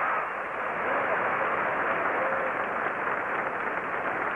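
Crowd applauding at a tennis match: a dense, steady clatter of clapping, muffled and thin on an old band-limited television recording.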